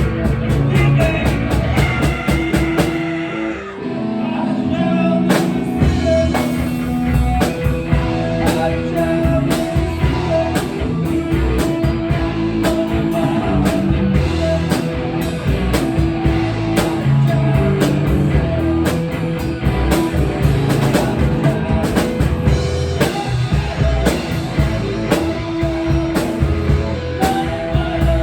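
Rock music with a drum kit keeping a steady beat under sustained pitched notes. The music drops back briefly about four seconds in.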